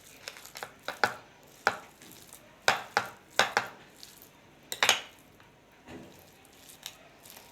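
A fork mashing boiled dried figs and garlic in a dish, its tines knocking against the dish in irregular sharp clicks. The clicks come in clusters through the first five seconds, then fade to faint sounds near the end.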